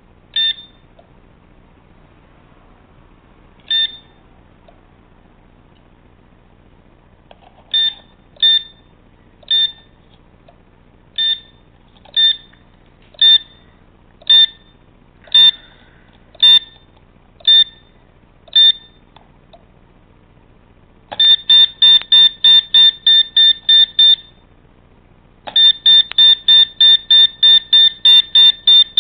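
Short, high electronic beeps from a small buzzer: single beeps spaced a few seconds and then about a second apart, then two runs of rapid beeping at about four beeps a second, the second run starting near the end.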